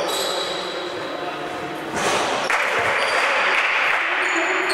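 A single thud about two seconds in, then a small crowd of spectators clapping for about two seconds for a made free throw.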